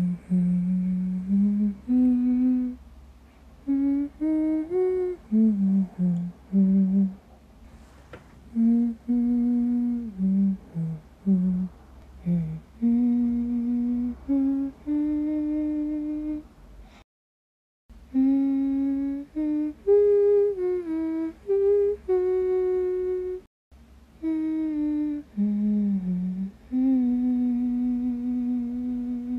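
A single voice humming a slow, wordless melody in held notes, phrase by phrase. It cuts to silence briefly twice past the middle.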